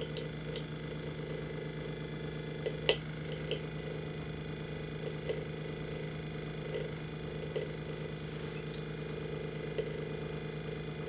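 Vacuum pump of a small benchtop vacuum plasma unit (NMR-Gts) running with a steady hum while the chamber is held under vacuum during plasma treatment. Scattered light clicks, the sharpest about three seconds in.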